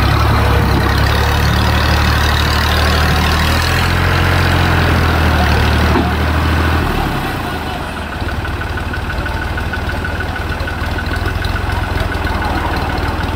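Fiat 480 tractor's three-cylinder diesel engine running hard under load, the tractor and its loaded trolley bogged in wet, muddy ground. About seven seconds in the engine eases off to a lower, steadier run.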